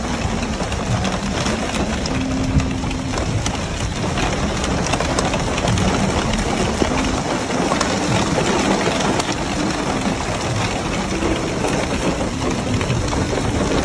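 Heavy hailstorm: a dense, steady clatter of hailstones striking, made up of many sharp individual clicks.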